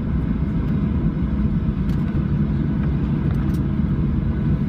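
Cabin noise inside a Boeing 737-700 taxiing after landing: the steady low rumble of the idling CFM56-7B engines and the airframe, with a faint steady whine above it.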